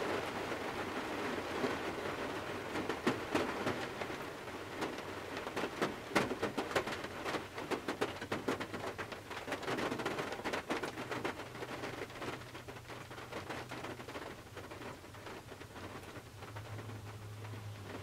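Rain falling on the roof and windows of a Toyota 4Runner, heard from inside the cargo area: a steady hiss of rain with many sharp drop ticks, heaviest in the middle and easing off toward the end. A low steady hum of a passing car comes in near the end.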